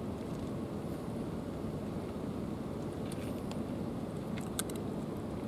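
Steady low outdoor rumble, with a few faint crisp clicks about three and four and a half seconds in from two cats crunching dry kibble.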